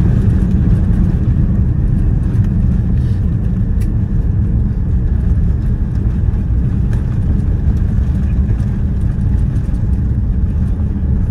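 Cabin rumble of a Boeing 787-9 rolling out on the runway after touchdown: a steady, deep rumble of the wheels and airframe that eases slightly as the jet slows.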